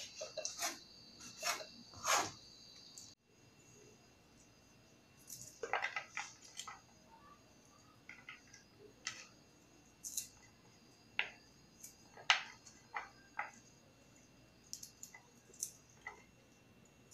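A cleaver knocking on a plastic cutting board as pork is sliced, over a steady high trill of crickets, for about the first three seconds; the sound then cuts off suddenly. After that, scattered light taps and clicks of hands handling sliced onion rings on a ceramic plate.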